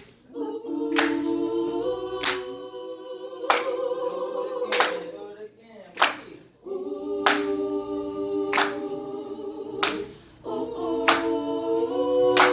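A cappella vocal group singing sustained wordless harmony chords that shift every couple of seconds, with a sharp clap on the beat about every second and a quarter.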